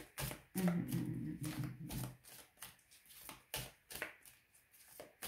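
Oracle cards being shuffled by hand, a run of irregular soft card taps and slaps. A brief low hum sounds from about half a second in until about two seconds.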